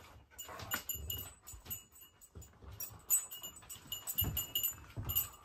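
A dog's collar tags jingling on and off as the dog moves about, with a few soft footsteps on the floor.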